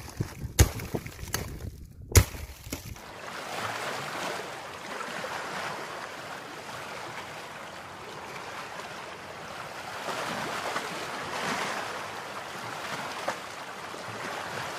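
A few sharp knocks in the first couple of seconds, then a steady rushing wash like surf that swells and eases slowly.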